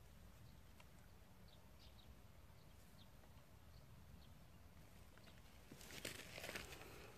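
Near silence, with faint, scattered short bird chirps and a brief scuffing rustle about six seconds in.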